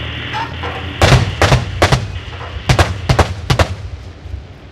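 Live military gunfire: about a dozen sharp shots in short, uneven bursts, many coming in close pairs, over about three seconds, each with a short echo, over a low steady rumble.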